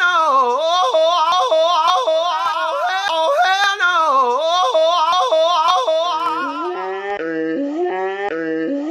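A high voice warbling in a yodel-like wail, its pitch wobbling fast and swooping up and down without pause. About six seconds in it breaks into short stepped notes with a lower tone beneath.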